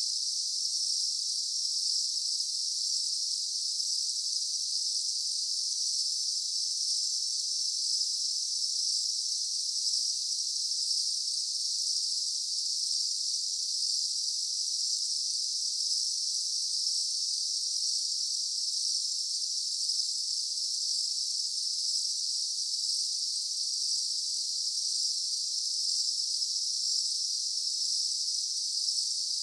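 Daytime insect chorus: a steady, dense high-pitched buzzing trill of many insects, unchanging throughout.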